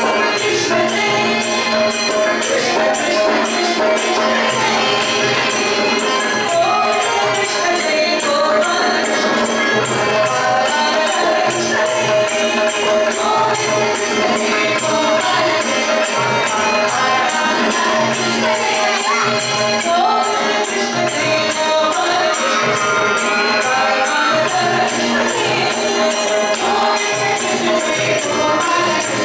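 Carnatic devotional singing by two women's voices over a steady drone, with a steady percussion beat.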